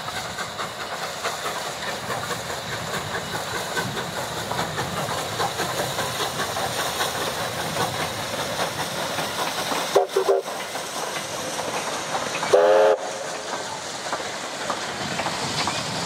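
Steam locomotive hauling a passenger train, its steady rhythmic working running throughout. Its whistle sounds twice: a short toot about ten seconds in and a louder, longer blast near the end.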